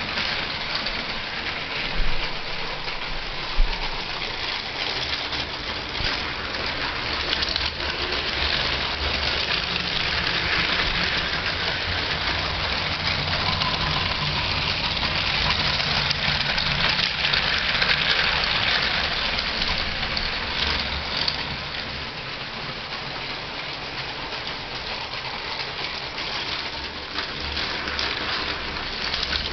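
Lego toy trains running on plastic track: a steady rattling whir of small electric motors and wheels on the rails, louder through the middle. Two short knocks come near the start.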